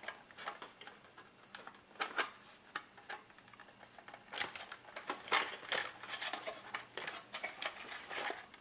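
Hard plastic RC car body shell being handled and worked down onto its chassis: light plastic clicks, taps and rubbing at irregular moments, busiest about halfway through.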